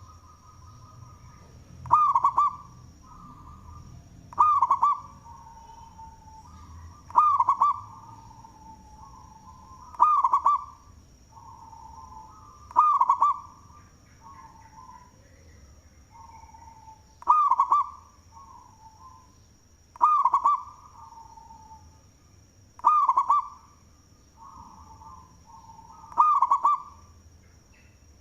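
Zebra dove (perkutut) cooing in full song, a loud phrase repeated about every three seconds, nine times, with softer trailing coos between.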